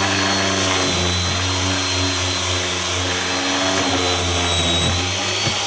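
Corded angle grinder with a sanding disc running steadily, grinding down hardened fiberglass filler on a wooden door jamb. Its high motor whine sags slightly about four seconds in.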